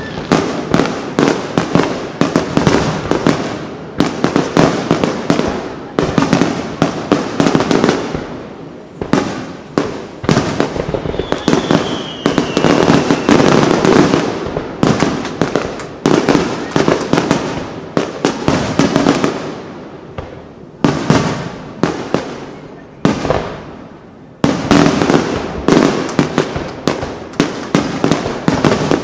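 Aerial firework shells bursting in a rapid, near-continuous barrage of bangs, with brief lulls about a third and three quarters of the way through. A faint falling whistle sounds a little before the halfway point.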